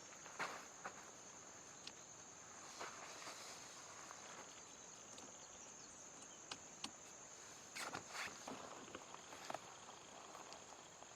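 A steady high-pitched insect drone, with scattered soft rustles and light footsteps on the ground, a little louder about half a second, three seconds and eight seconds in.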